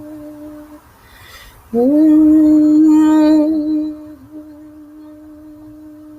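A voice humming long held notes on one pitch, as sound-healing toning. After a short breath it comes back louder, sliding up into the note about two seconds in, then eases back to a softer held tone.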